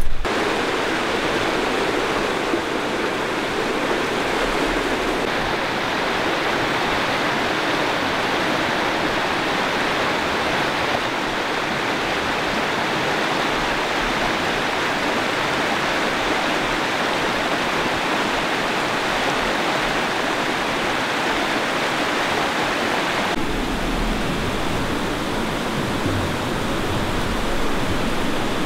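Steady rush of a river flowing over rocks, with a slight change in tone near the end.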